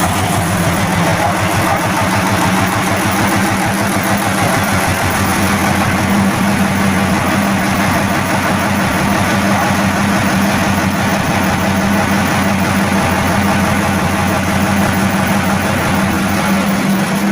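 FNM D-11000 truck's inline-six diesel engine, freshly rebuilt, idling steadily.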